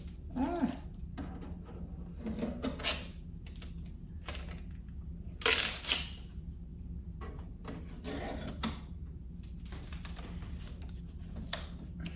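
Scattered clicks, taps and rustles as blue shipping tape is peeled off a new printer and its plastic parts are handled, with the loudest crinkly burst about five and a half seconds in, over a steady low hum.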